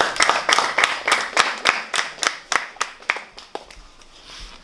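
A small group clapping: quick, uneven claps that thin out and stop about three and a half seconds in.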